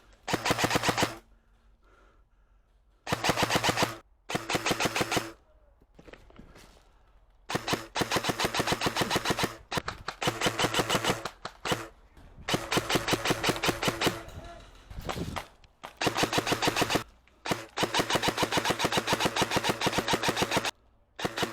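Airsoft rifles firing full-auto: repeated bursts of rapid, evenly spaced shots, some short and some running two to three seconds, with brief pauses between them.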